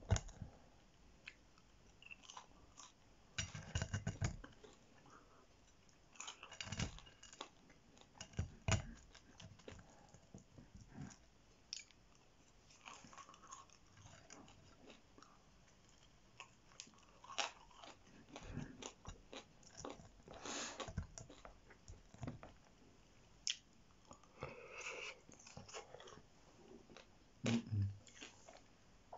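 Close-miked chewing and biting of mouthfuls of chicken massaman curry and fries, in irregular short wet and crunchy mouth sounds.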